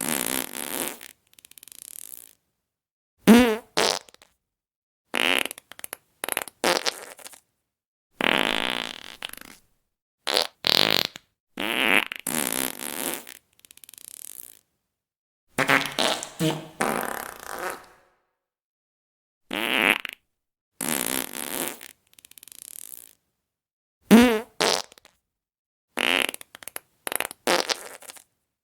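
A string of fart sounds, one after another, each from under a second to about two seconds long with dead silence between them. Several have a wavering, warbling pitch.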